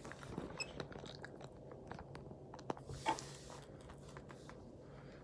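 Foam squishy toy being squeezed and handled, giving faint scattered crackles and small clicks, with a slightly louder crackle about three seconds in.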